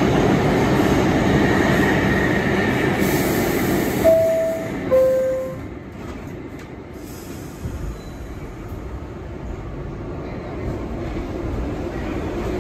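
Inside an R62A subway car: steady car noise, then about four seconds in a two-note falling door chime, after which the car noise drops.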